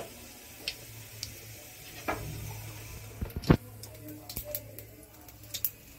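A metal spoon knocks and scrapes in a pressure cooker while cumin seeds are stirred in hot mustard oil, with scattered sharp crackles from the seeds as they pop. The loudest knock comes about three and a half seconds in, over a low steady hum.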